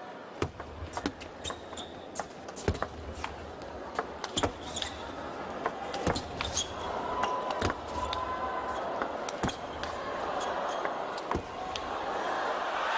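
Table tennis ball striking the rackets and the table in a long rally, a series of sharp clicks over crowd noise that swells near the end.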